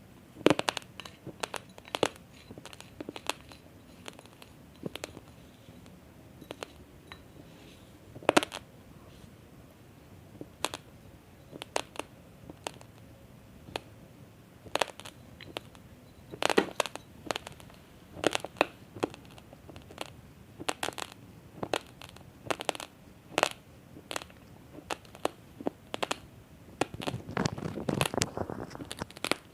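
Raw basmati rice grains crunching between the teeth: a string of sharp cracks at irregular intervals, busier near the end.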